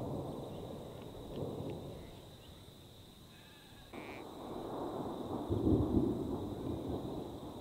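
Distant thunder rolling twice: one rumble starts suddenly and fades over about three seconds, and a second begins about four seconds in and swells before dying away. It comes from lightning up in the storm's core rather than ground strikes.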